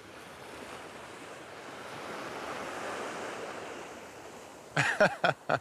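Surf washing onto the beach, swelling and easing off in the middle. A few short, loud, pitched sounds break in near the end.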